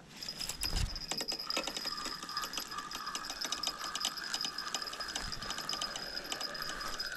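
Spinning reel on a fishing rod being cranked steadily to wind in the line, its gears whirring with a fast run of clicks; it starts just after the beginning, with a soft low bump about a second in.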